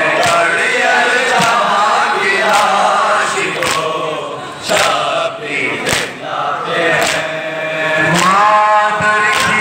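A man reciting a noha, a Muharram lament, into a handheld microphone over a loudspeaker, with a crowd of men chanting along. A sharp beat keeps time about once a second.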